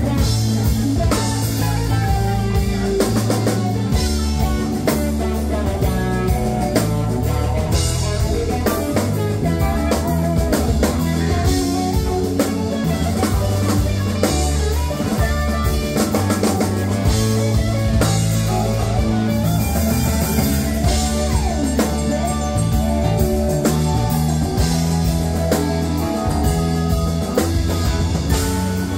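A live rock band playing: electric guitars, bass, keyboards and a drum kit keeping a steady beat.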